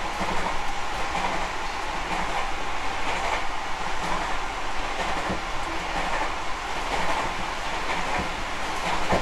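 Steady running noise of a Tobu 50050 series electric commuter train heard from inside motor car MoHa 52068: wheels rumbling along the rails at speed, even in level throughout.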